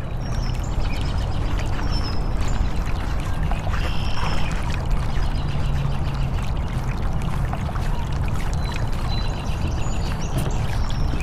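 Ambience of running water with short high bird chirps over it and a low steady rumble underneath.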